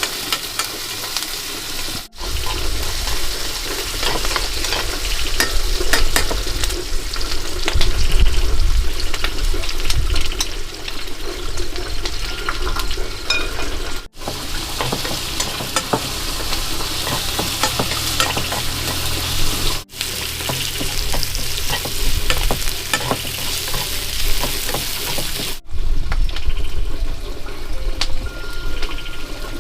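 Food sizzling and frying in a pan, with the scrape and click of stirring, broken off briefly a few times.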